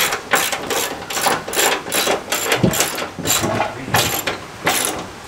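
Ratchet wrench clicking in quick, even strokes, about two to three a second, as bolts are tightened on a Model T Ford's fender.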